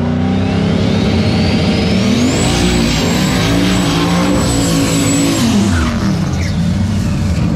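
Drag cars revving hard at the starting line, with a high whine that climbs for about two seconds and then holds. About five and a half seconds in the cars launch and pass close by, their engine pitch dropping as they go.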